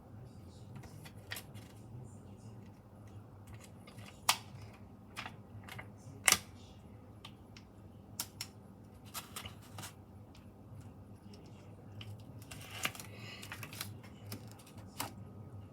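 Small clicks and taps with brief light rustling from stickers being handled and picked off the sheet with tweezers, two sharper clicks about four and six seconds in, over a faint low hum.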